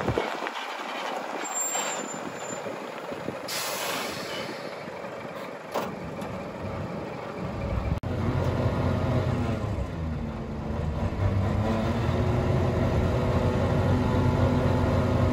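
Scania P420 truck's diesel engine with a short hiss of compressed air from the brakes as it comes to a stop. Later the engine runs steadily and its revs rise and hold while it drives the hydraulics that raise the tipper body.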